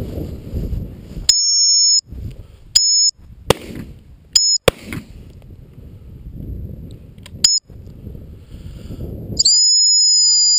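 Gundog whistle blown in shrill, steady blasts: a longer one about a second in, short pips a few seconds apart, and a long held blast beginning near the end. Between the blasts there is wind buffeting and rustling on the microphone, with two sharp clicks.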